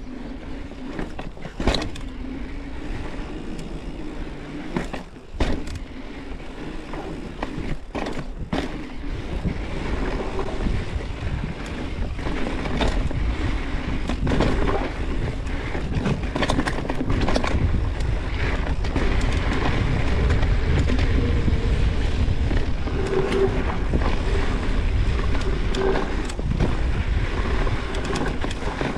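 Mountain bike riding down a dirt trail. Tyres rumble over the ground and the bike rattles, with sharp knocks from rocks and roots, a few of them in the first third. Wind on the microphone gets steadily louder as the speed builds.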